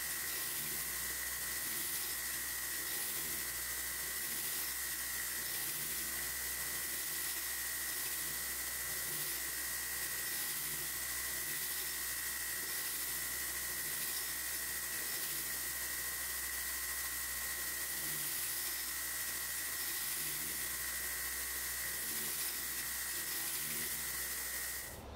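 Belt grinder with a 120-grit belt and a surface-grinding attachment grinding the flats of a Damascus steel blade: a steady grinding hiss with a constant high whine, cut off suddenly near the end.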